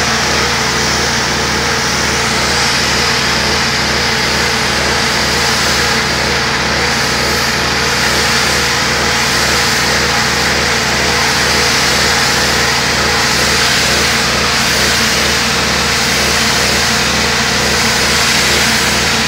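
Pressure washer running steadily: the small engine's constant drone under the hiss of the high-pressure water jet spraying a wall.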